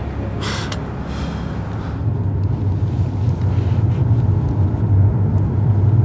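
Steady low rumble of a running vehicle, growing louder from about two seconds in, after two short swishing noises.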